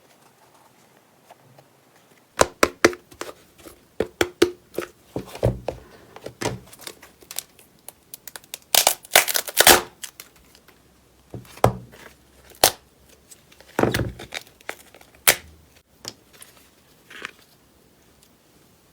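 Slime being squeezed and pulled apart by hand: a run of sharp pops, crackles and tearing sounds. It starts about two seconds in, is densest and loudest around the middle, and thins out towards the end.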